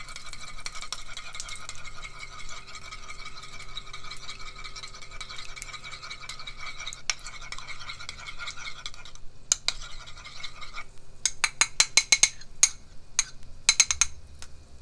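Two eggs being beaten with a metal spoon in a ceramic bowl: fast, steady clinking and scraping of the spoon against the bowl. After about nine seconds the beating stops and a string of separate sharp clicks follows as the spoon knocks against the bowl.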